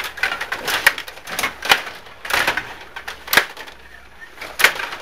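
Stiga rod table hockey game in play: an irregular clatter of sharp clicks and knocks as the rods are pushed, pulled and spun and the plastic puck strikes the players and the boards.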